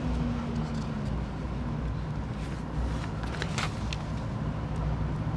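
Paper rustling and crackling a little past the middle as a handwritten sheet on a clipboard is swapped for the next, over a steady low background hum.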